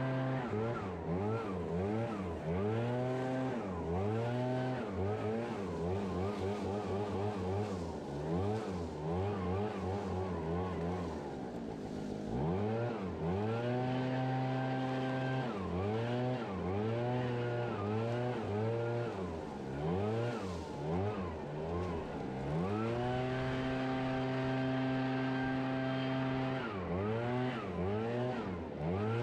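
Small gasoline engine of lawn equipment running at high throttle, its pitch repeatedly dipping and climbing back as the throttle is let off and opened again, with longer steady stretches at full revs about halfway through and near the end.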